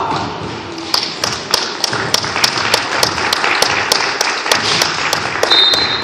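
Applause from a small audience, starting about a second in: many sharp, irregular hand claps over a steady hiss of clapping, thinning out near the end.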